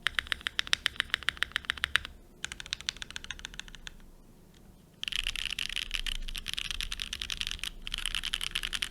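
Typing on a QK65 MK3 custom mechanical keyboard: rapid keystroke clacks in several runs, with a short lull about four seconds in and a louder, denser run from about five seconds on.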